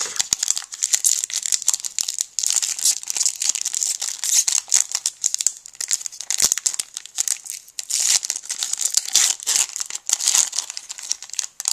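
Foil trading-card pack crinkling and tearing as it is peeled open by hand, a dense crackle of foil throughout.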